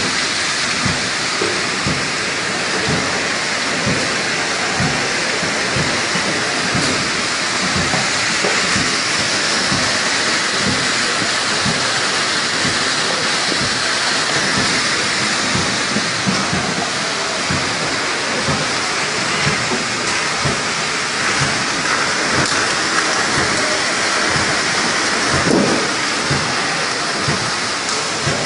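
Automatic trigger-spray capping machine running: a steady, dense mechanical hiss and rattle, peppered with many small irregular clicks as bottles and trigger heads move through it.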